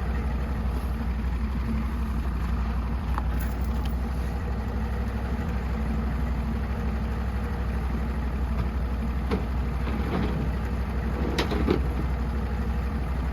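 Norwood portable sawmill's engine running steadily, with a few light knocks near the end.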